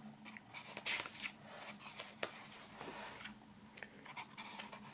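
Thick glossy pages of a hardcover earbook being turned and smoothed by hand: soft paper rustles and slides, with a crisp flick of the page about a second in.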